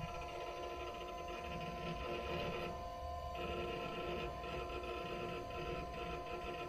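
Steady electronic hum of several held tones over a faint hiss.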